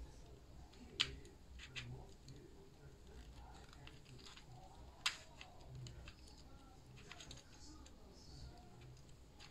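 Plastic 2x2 Rubik's cube being twisted by hand: scattered soft clicks and clacks of the layers turning, with sharper clicks about a second in, near two seconds and about five seconds in.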